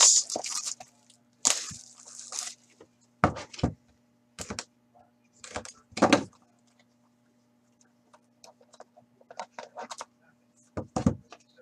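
Cardboard trading-card boxes being handled and opened by hand: a sliding scrape about a second and a half in, then several knocks and thunks as boxes are moved and set down, quieter clicks and rustles as a box's cardboard sleeve is worked open, and a couple more knocks near the end.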